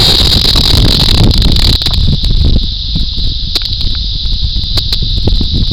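Cicadas droning in a steady, high, electronic-sounding buzz. Wind buffets the microphone with a low rumble that eases about two seconds in, and a few sharp clicks are scattered through.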